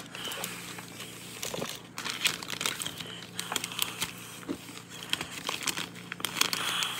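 Plastic snack bag crinkling as it is handled by hand, with irregular crackles throughout.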